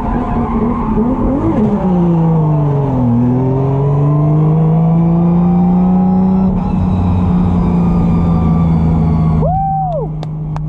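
Drift car's engine under hard use: a quick rev that drops away, then climbs slowly and settles to a steady hum for the last few seconds. A short high tone rises and falls near the end.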